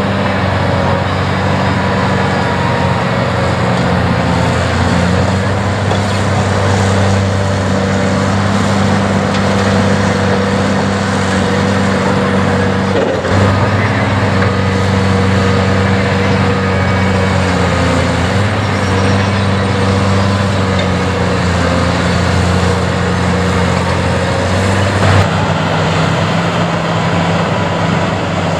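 Diesel engine of a heavy Caterpillar construction machine running at a steady speed, with a brief knock about halfway through and another near the end.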